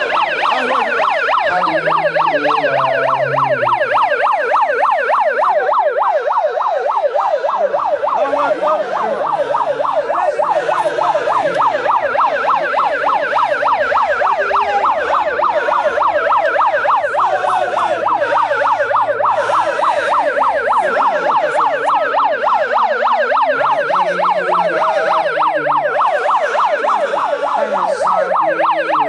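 Handheld megaphone's built-in siren warbling fast and continuously, loud and steady, with a crowd's voices faintly underneath.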